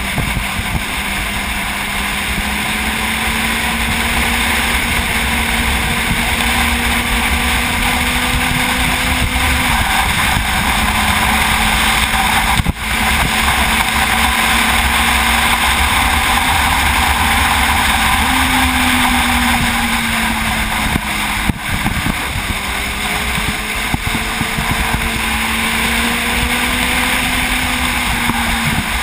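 Sport motorcycle engine running at highway speed, its pitch slowly rising and falling with the throttle, under heavy wind noise on the microphone. The sound drops out briefly twice.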